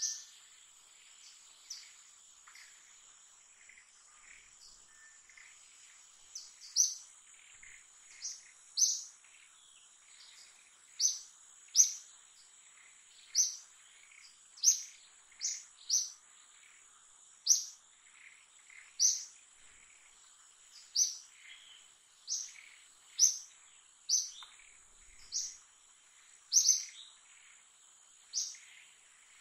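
A bird repeating a short, sharp, downward-sliding chirp, sparse at first and then about once a second, over a steady high-pitched insect drone.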